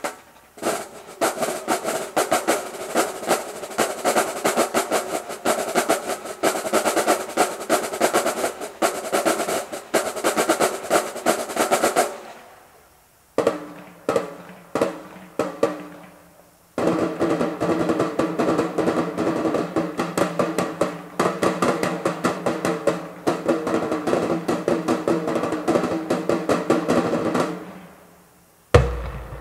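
Marching drumline playing a fast cadence, snare drums rolling and striking rapidly. The playing stops suddenly about twelve seconds in, gives way to a few scattered hits, and the full section comes back in around seventeen seconds before stopping again near the end.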